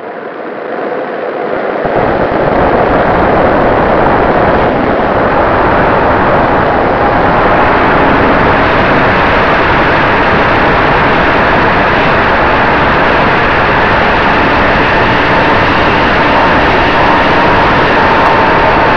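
Radio-controlled model Cessna 188's motor and propeller throttling up for takeoff, rising to full power over the first couple of seconds. After that comes a steady loud rush of propeller and air noise, heard from a camera mounted on the tail, through the climb and turns.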